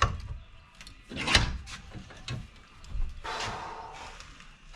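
Workshop handling noises at a bench vise: a few sharp clunks, the loudest about a second in, and a brief scrape near the end, as a metal bracket and tools are worked.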